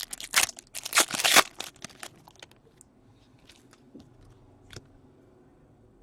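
Foil wrapper of a hockey card pack being torn and crinkled, in two loud rustling bursts within the first second and a half, followed by a few faint clicks of card handling.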